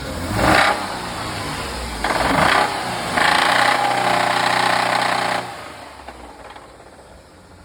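A 2008 Jeep's 3.8-litre V6 engine revved in three throttle blips, the last held for about two seconds before it drops back to a quiet idle. It has a hammering knock, which the owner calls engine knock.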